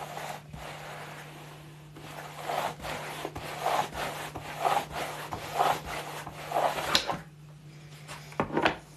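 A 20 mm boilie rolling table being pushed back and forth, its grooved halves rubbing against each other as they roll bait paste into balls, about one stroke a second. A sharp click about seven seconds in, then one more short scrape.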